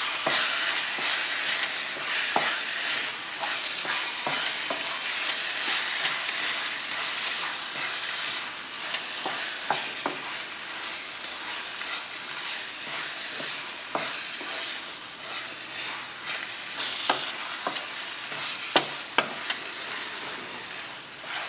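Onion-tomato masala sizzling in a pan while being stirred, with the spoon knocking and scraping against the pan now and then.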